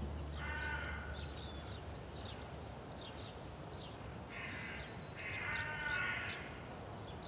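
Outdoor bird ambience: small birds chirping throughout, and three longer calls from a larger bird, one near the start and two in close succession about four to six seconds in.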